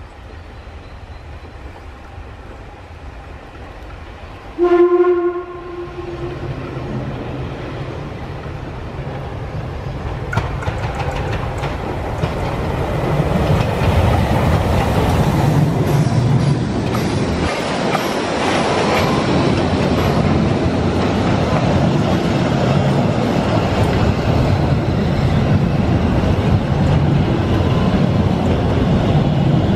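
Narrow-gauge steam tank locomotive 99 1794-9 (Deutsche Reichsbahn class 99.77) gives one short whistle blast about five seconds in. It then draws closer, growing louder, and runs past, followed by its passenger coaches rolling by on the rails.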